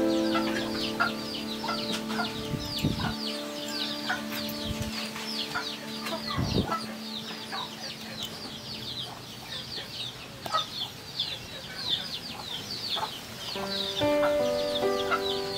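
Many chicks peeping all through, a steady run of short, high, falling cheeps several times a second. Background music with sustained notes plays under it at the start and again near the end.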